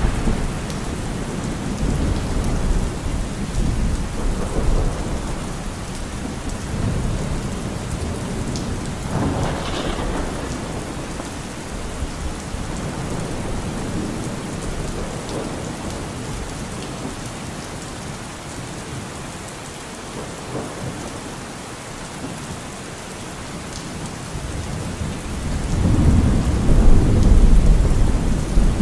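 Steady rain falling, with low rolls of thunder; the loudest rumble builds near the end.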